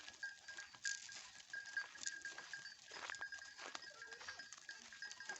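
Goats bleating now and then, over a steady high-pitched pulsing tone and scattered sharp clicks.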